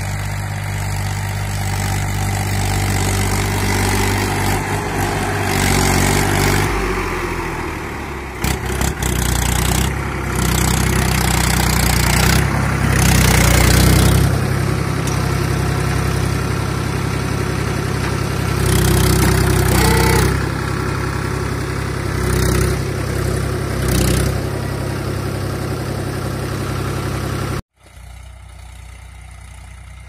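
Farm tractor's diesel engine running under load while it pulls a tine cultivator through tilled soil, its pitch rising and falling as the throttle changes. Near the end it drops suddenly to a quieter, more distant engine sound.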